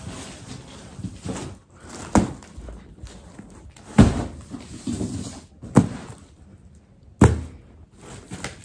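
Thumps and knocks from belongings being handled and set down while packing, with four loud ones about every one and a half to two seconds and smaller knocks and rustling between them.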